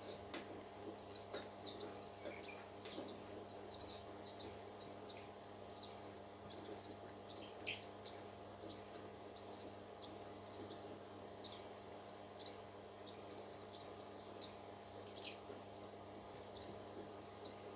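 Bird chirping over and over in short, high chirps, about two a second, over a steady low hum.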